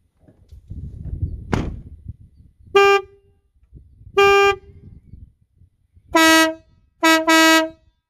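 A van door shuts with a thump, then a newly fitted aftermarket compressor-fed air horn on a Ford Transit Custom van sounds in five short blasts. The last two blasts come in quick succession.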